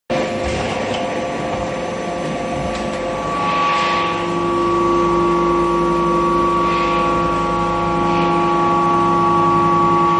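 Hydraulic deep-drawing press for stainless steel sinks running: a steady, loud whine from its hydraulic system, its pitch changing about three seconds in, with a few short hisses.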